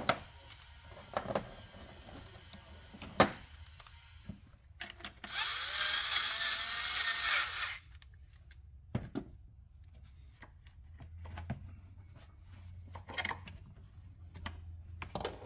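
Cordless power driver with a socket extension spinning steadily for about two and a half seconds, backing off the clamp on the air intake tube at the throttle body. Short sharp clicks and knocks of parts being handled come before and after; the loudest knock is about three seconds in.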